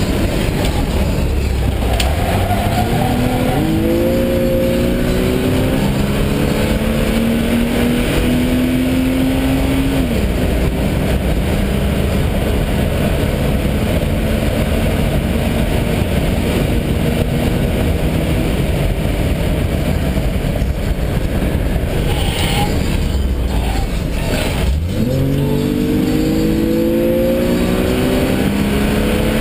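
Jaguar race car's engine heard from inside the cabin, running hard under load with its pitch climbing slowly as speed builds, over steady wind and road noise. The pitch drops near the middle and dips sharply about five seconds before the end, then rises again.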